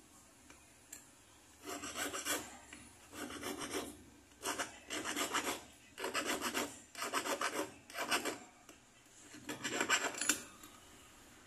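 Metal bangle bracelet being filed, its end rubbed back and forth against a flat file block in short bouts of rapid rasping strokes, starting a little under two seconds in.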